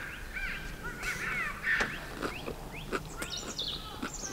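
Birds calling outdoors: many short, repeated chirps and rising-and-falling calls from more than one bird, with a few light clicks in between.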